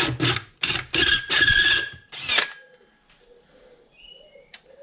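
Power drill driving a hole saw into metal in about four short bursts, with a thin squeal from the saw biting in the cut, then stopping. Faint small squeaks follow.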